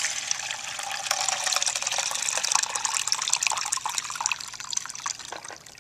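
Running buffer poured from a glass bottle into the outer chamber of a clear plastic electrophoresis tank: a steady splashing stream of liquid with many small bubble pops as the buffer foams, easing off near the end.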